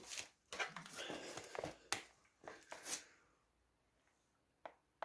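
Rustling and clicking handling noises for about three seconds, then a few faint clicks; no engine is running.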